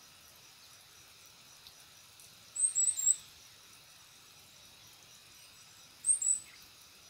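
A small bird's high-pitched chirps, a quick cluster of several sharp notes about two and a half seconds in and a shorter one about six seconds in, over a faint steady hiss of insects.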